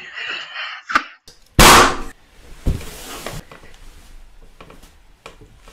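A toy balloon bursting with one loud bang about a second and a half in, followed by a thump and quieter rustling.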